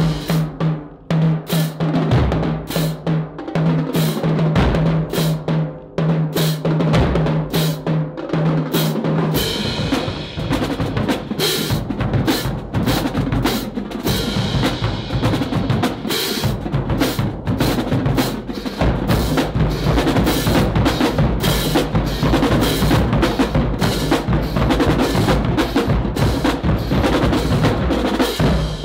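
Marching drumline of snare drums, tenor drums, bass drums and cymbals playing a cadence together: fast snare strokes and rolls, cymbal crashes and low bass drum notes, with no break.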